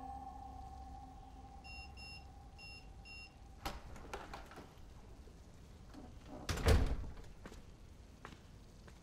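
Electronic keypad door lock beeping in short paired beeps as a code is entered, then clicks of the lock and handle, and the door thudding about two thirds of the way in. Soundtrack music fades out under the first few seconds.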